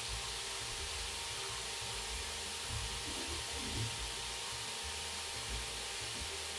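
Minced meat frying in a pan: a steady sizzling hiss, with a few faint low thumps.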